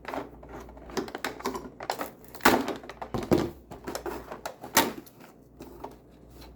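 Small plastic and cardboard pieces being handled: an irregular run of clicks, taps and light rustling, with sharper knocks about two and a half, three and a half and five seconds in.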